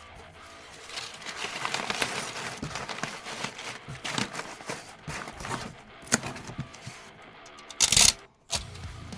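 Packing materials being handled: irregular crinkling, rustling and clicking, then a short, loud rasp about eight seconds in.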